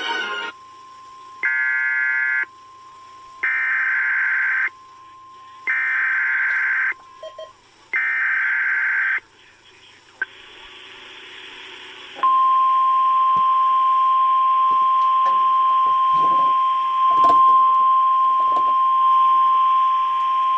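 Emergency alert broadcast for a tornado watch: four short screeching SAME digital header bursts, then the steady 1050 Hz NOAA Weather Radio warning alarm tone held for about nine seconds.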